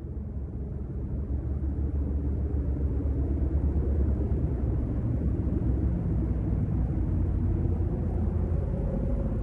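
A low rumbling drone that fades in and grows louder over the first few seconds, then holds steady.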